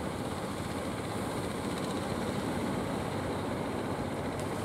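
A fishing boat's engine running steadily as the boat passes close offshore, over a haze of sea and wind noise.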